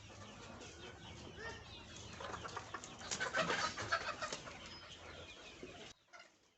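A flock of young Fayoumi chickens clucking and calling in a shed, many birds at once, busiest and loudest about three to four seconds in, then stopping abruptly near the end.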